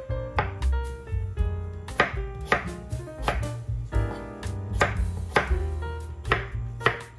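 Kitchen knife chopping peeled potatoes on a wooden cutting board, a steady run of sharp strikes about once or twice a second as the blade goes through into the board. Soft background music with held notes plays underneath.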